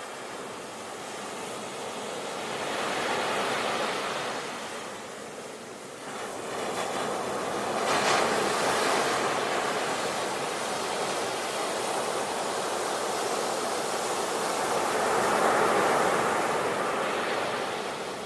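Sea waves breaking and washing, swelling three times: a few seconds in, more sharply at about eight seconds, and again near the end.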